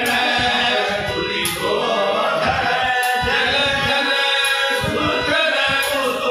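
Devotional bhajan: a group of voices sings with a harmonium playing sustained reed chords, and short sharp strikes keep time about every second and a half.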